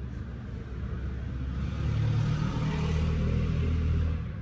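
A car's engine running, growing louder about two seconds in and easing off near the end.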